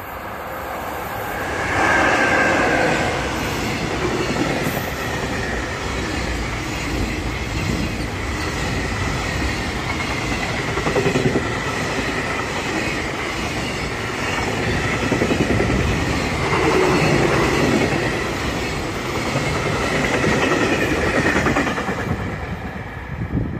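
A freight train hauled by an EF66 electric locomotive passing close by: loudest as the locomotive goes by about two seconds in, then a steady rush and clickety-clack of container wagons on the rails with a thin high whine running along, falling away as the last wagon passes near the end.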